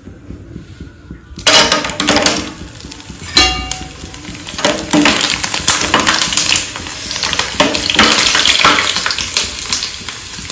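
Kachri (dried fryums) frying in hot oil in a steel pan: a dense crackling sizzle that starts about a second and a half in, with clinks and scrapes of a spoon stirring against the pan.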